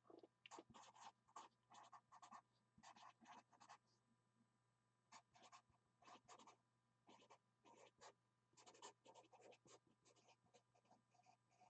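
A pen writing on paper, faint, in short scratchy strokes that come in several clusters with brief pauses between them.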